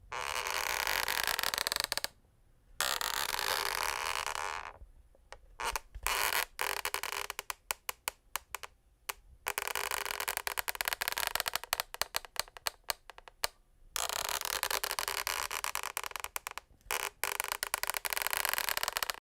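Wooden parquet floorboards creaking: long rasping creaks of a couple of seconds each with short pauses between them, and a stretch of rapid crackling clicks about a third of the way in.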